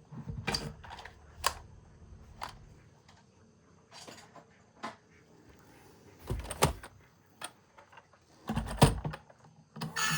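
Plastic toy vehicles being handled: scattered clicks and light knocks, with two heavier thumps in the second half.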